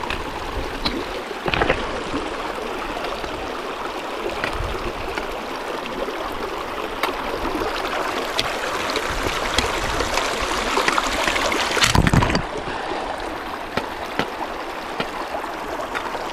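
Dunnfield Creek running steadily over rocks and boulders. A short knock comes early, and a louder low thump about twelve seconds in.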